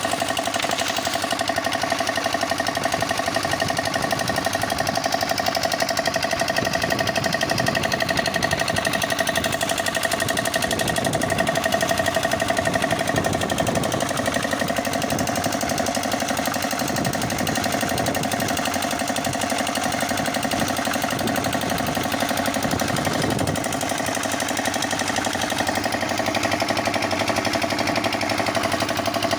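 Concrete mixer running steadily, a fast, even mechanical rattle with a constant whine over it.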